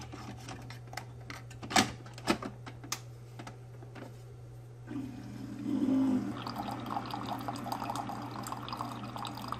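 Keurig single-serve coffee maker: sharp plastic clicks as a reusable K-cup filter is seated and the lid snapped shut, then about five seconds in the brewer starts and coffee streams into the mug with a steady hiss and patter.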